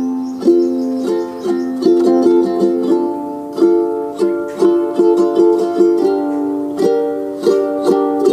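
Background music of a plucked ukulele playing a melody of repeated notes, at a steady, lively pace.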